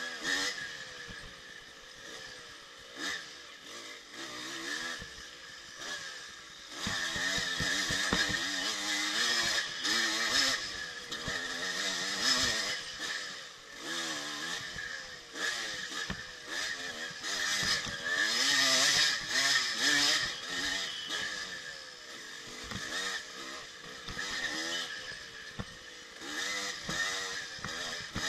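1984 Yamaha IT200 two-stroke single-cylinder dirt bike engine being ridden hard, its pitch rising and falling over and over with the throttle, with knocks and clatter from the rough ground. It is loudest at about eight to ten seconds in and again near eighteen to twenty seconds.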